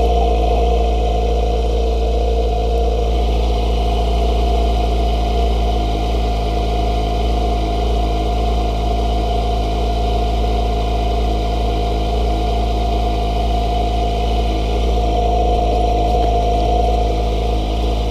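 Kawasaki ZX-25RR's 249 cc inline-four engine running at a steady, unchanging speed.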